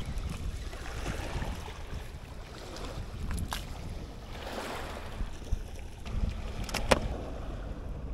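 Wind buffeting the microphone over small waves washing against a rocky shore. Two sharp clicks come through it, one midway and a louder one near the end.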